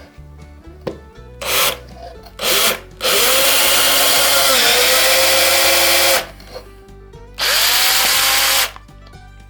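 A cordless power tool's motor running in trigger pulls: two short blips, then a run of about three seconds whose pitch dips briefly midway, then a run of just over a second, over background music.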